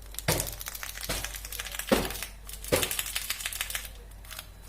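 Rapid light clicking and crinkling from a small food-colour container being handled, with a few sharper taps of metal on the pan while yellow food colour is added to the sugar syrup.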